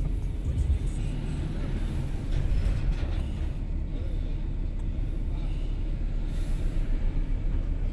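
Steady low rumble of a car's engine and road noise, heard from inside the cabin while the car idles and creeps forward in traffic.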